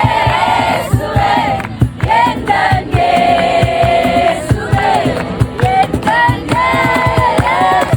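A crowd of worshippers singing a Christian worship song together, held melodic lines over a regular drumbeat.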